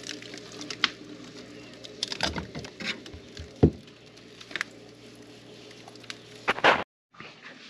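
Steady low hum of a running freezer with its door open, with light clicks and knocks scattered over it and one louder knock about three and a half seconds in. The hum cuts off shortly before the end.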